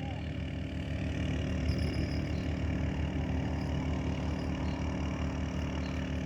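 An engine idling steadily, with an even hum that does not rise or fall.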